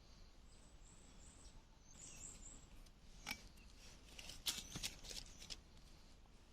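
Quiet background with a few sharp clicks and knocks: one about three seconds in, then a quick cluster about a second later.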